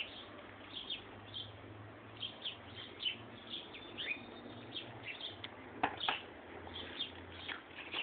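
Small garden birds chirping and twittering, many short high calls with one falling note about four seconds in, and a couple of sharp clicks about six seconds in.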